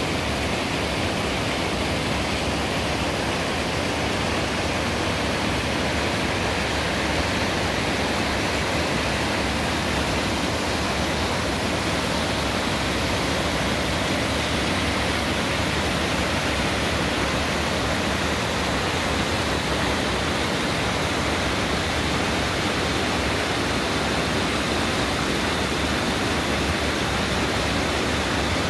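Rushing water of a stream cascading over rock slabs, a steady, even hiss.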